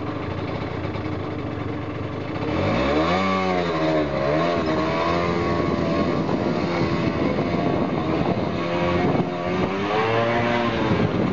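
Small motor scooter's engine running under way. It is revved up and eases back about two and a half seconds in, pulls steadily, then rises and falls with the throttle again near the end.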